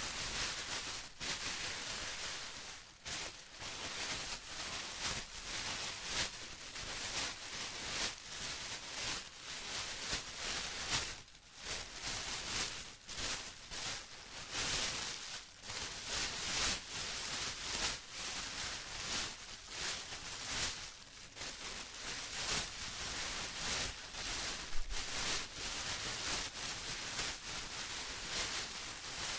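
Plastic being rustled and crinkled continuously, an uneven crackling hiss with a few brief lulls.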